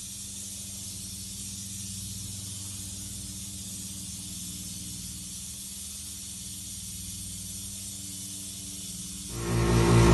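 A steady hiss over a low hum. About nine seconds in, a much louder motor starts up with an even, pulsing hum: a jeweller's polishing motor driving a buffing wheel.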